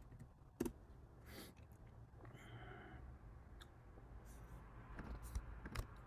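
Quiet room tone broken by a few isolated clicks of a computer keyboard and mouse. The sharpest is a single keypress about half a second in, likely the Enter key running the lint command; fainter mouse clicks follow near the end.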